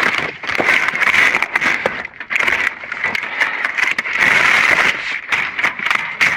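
Junk and debris in a dumpster being handled: irregular clattering, knocking and scraping, over a steady high-pitched drone.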